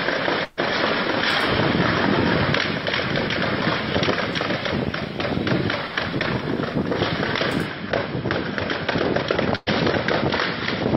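Gunfire from a street shootout recorded on a phone: many sharp cracks in quick succession over a constant rough noise. The sound drops out briefly twice, about half a second in and near the end.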